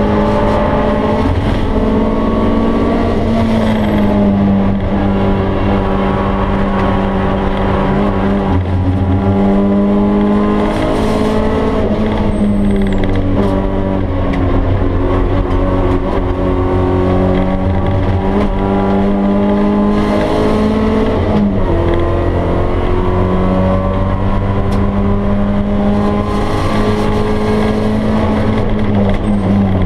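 Stock BMW E30 318is four-cylinder engine heard inside the cabin, pulling hard at speed. Its pitch climbs and drops several times with gear changes and corners.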